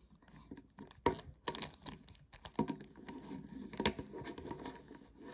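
Plastic speed cube being turned by hand: a rapid, irregular run of clicks and scratchy rattles as the faces are twisted, with sharper snaps about a second in and near four seconds.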